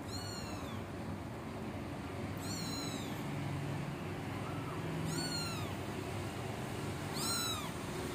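A one-month-old kitten meowing four times, thin high-pitched calls that each fall in pitch at the end, about two seconds apart. It is a kitten still hungry for milk, begging to be fed.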